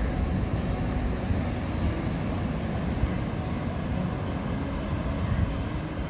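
Steady, even wash of surf breaking on a sandy beach, mixed with a low wind rumble on the microphone.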